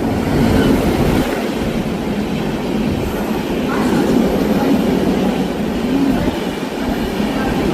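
Express passenger train hauled by a WAP-7 electric locomotive passing at speed: a loud, steady rumble of wheels on the rails.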